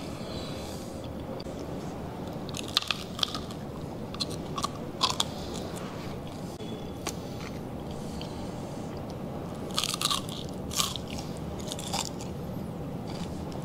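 Biting and chewing into crispy pata, deep-fried pork knuckle, its crisp skin crunching. The sharp crunches come in clusters about three seconds in, around five seconds, and again around ten to twelve seconds.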